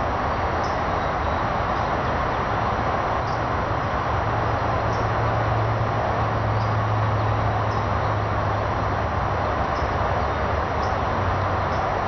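Steady rushing background noise with a low hum underneath; the hum grows stronger from about four seconds in and eases again about eight seconds in.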